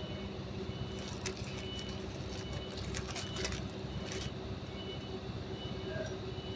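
Steady background machine hum, with crinkling and rustling of the paper wrappers on engine bearing shells as they are unwrapped and handled from about a second in to about four and a half seconds in.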